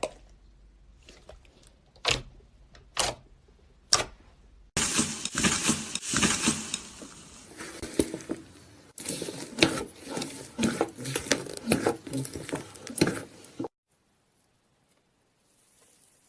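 Slime being handled: a few sharp separate pops, then about nine seconds of dense crackling and squishing full of tiny clicks, which cuts off suddenly.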